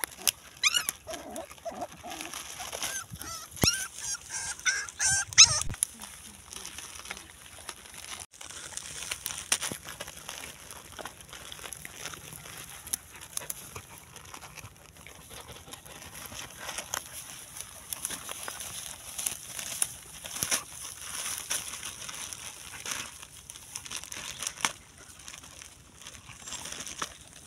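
A dog chewing and mouthing a cylindrical container, with scattered crinkling and clicking. Short, wavering high animal calls sound in the first few seconds.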